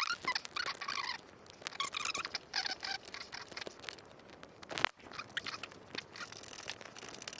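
Screws being driven into a wooden board to fix throwing knives in place, heard as short, irregular bursts of scratchy squeaking and creaking with scattered clicks.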